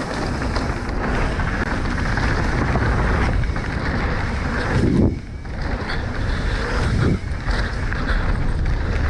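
Wind rushing over the camera microphone and the tyres of a Specialized Enduro mountain bike rumbling over a dirt trail at race speed. The rumble dips briefly twice, about five and seven seconds in.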